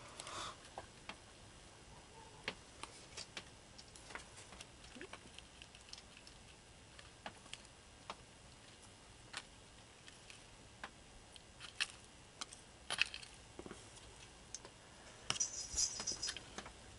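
Faint, scattered small clicks and taps over quiet room tone, with a quick flurry of clicks near the end.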